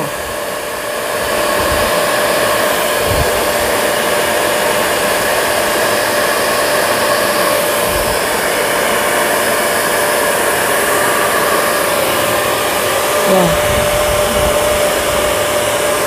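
Old hand-held hair dryer blowing hot air: a constant rush of air with a steady motor whine.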